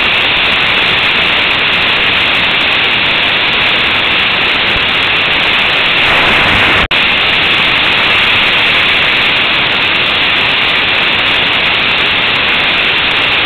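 Loud, steady wind rush on a motorcycle-mounted action camera's microphone at riding speed, drowning out the engine. It cuts out for an instant about seven seconds in.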